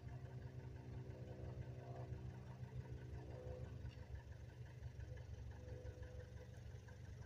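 Faint, steady engine drone over a low rumble.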